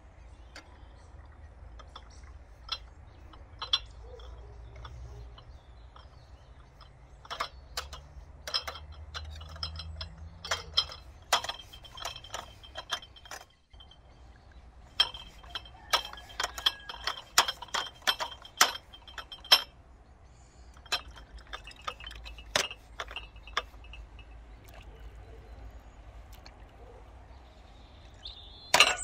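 A ladle and a stainless steel funnel clink against glass jars as thick pepper and tomato sauce is ladled in. The sharp clinks come at irregular intervals, some ringing briefly, with soft wet pours between them and a brief gap about halfway.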